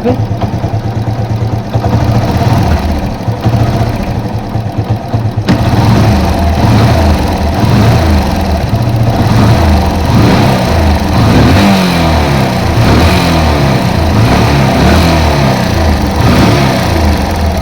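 Yamaha FZ-S single-cylinder motorcycle engine running, heard up close at the cylinder head, with its speed rising and falling a few times in the second half. The noise comes from loose valve tappets with too much clearance, which the mechanic says need adjusting.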